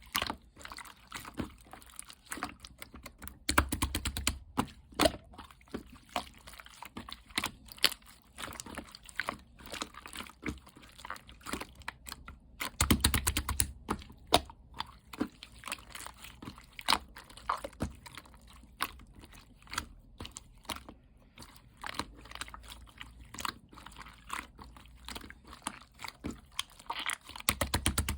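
Bead-filled 'frog egg' slime being squeezed and worked by hand: a continuous patter of small clicks and crackles, with fuller squelching pushes twice, a few seconds in and about thirteen seconds in.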